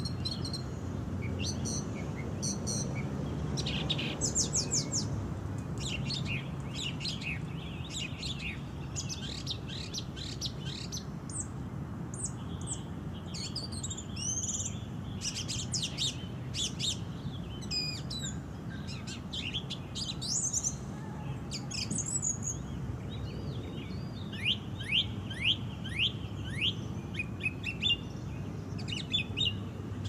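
Song thrush singing: a long run of varied, high-pitched phrases, with a series of quickly repeated notes near the end, over a steady low background rumble.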